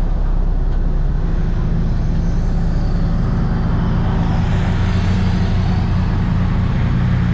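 Large vehicle engine running steadily, a loud, even low drone with no change in speed.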